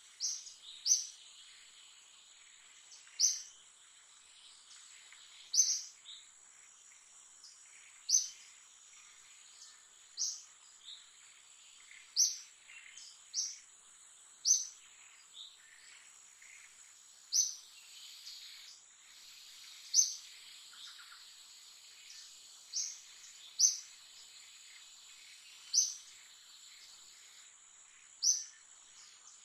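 A bird repeating a short, high, sharp call every two to three seconds, over a steady high-pitched insect drone from the forest.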